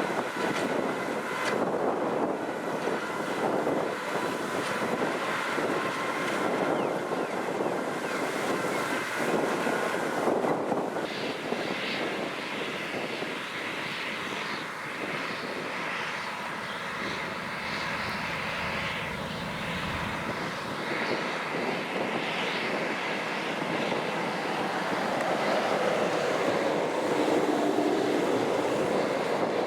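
Kubota M6040SU tractor diesel engine running steadily while plowing. The engine note changes about a third of the way in and rises and falls again near the end.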